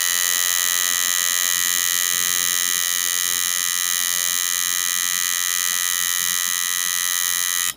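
Electric tattoo machine buzzing steadily while its needle lines a tattoo into skin, then cutting off abruptly at the very end.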